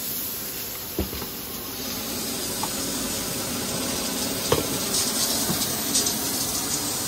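Steam hissing steadily from aluminium pressure cookers letting off pressure, growing gradually louder, with two sharp metal knocks, about a second in and midway, as a cooker is handled.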